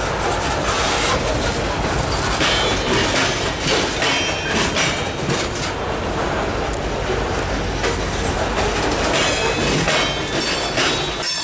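Freight train cars rolling past at close range, the wheels clattering steadily over the rail joints.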